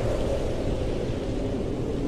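Steady blizzard wind noise, a rushing hiss with a low rumble and no crackles.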